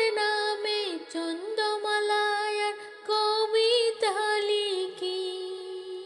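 A woman's voice singing a Bengali Islamic ghazal unaccompanied, in long held notes joined by short slides in pitch.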